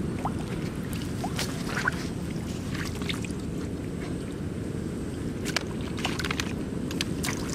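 Plastic basket scooping and dragging through shallow muddy water, with scattered short splashes and knocks over a steady low rumble.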